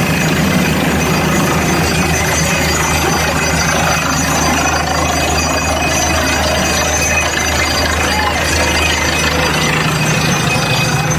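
Bore well drilling rig running steadily: a constant heavy engine drone with a broad rattling noise from the drilling over it.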